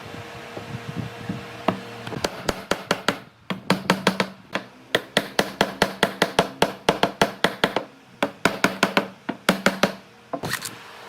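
Hammer striking wood in a quick, steady series of blows, about four a second, with short breaks about three and eight seconds in.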